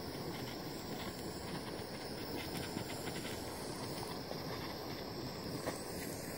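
Small handheld torch burning with a steady hissing flame while heating heat-shrink tubing over crimped wire connectors; the flame cuts off suddenly at the end.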